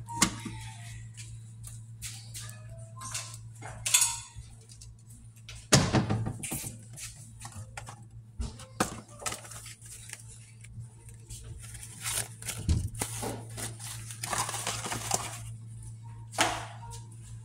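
Scattered clicks, knocks and clunks of objects being handled on a kitchen counter, over a steady low hum.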